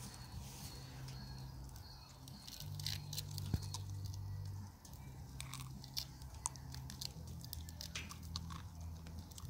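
A dog chewing and crunching roasted chestnuts, with irregular crisp crunches and clicks over a low steady rumble.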